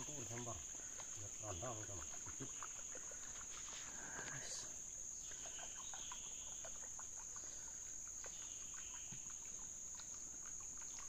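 Steady high-pitched drone of forest insects, unbroken throughout, with softer chirping patches beneath it; faint voices murmur briefly in the first two seconds.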